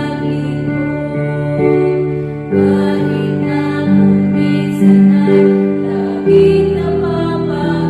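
Slow, gentle music of sustained chords that change every second or so.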